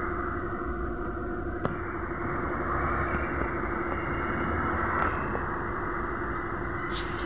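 Inside a BKM-321 trolleybus: a steady low rumble and hum with a constant drone-like tone from the vehicle's electrical equipment, and a single sharp click about a second and a half in.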